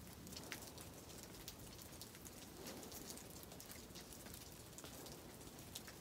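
Near silence: faint outdoor hiss with a few scattered soft ticks.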